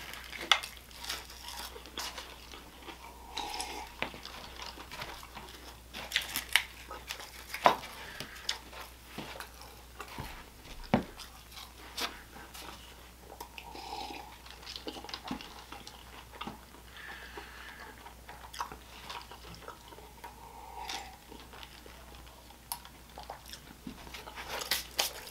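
A person chewing and biting food close to the microphone, with irregular sharp mouth clicks throughout. The food is most likely White Castle onion rings that have gone soft and rubbery.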